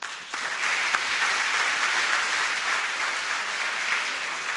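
Audience applauding, the clapping starting a moment in and then holding steady.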